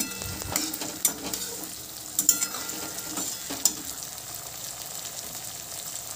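Sliced onions, tomato and green chillies sizzling in hot oil in a wok while a spatula stirs them. A few sharp clicks and scrapes of the spatula against the pan come in the first four seconds.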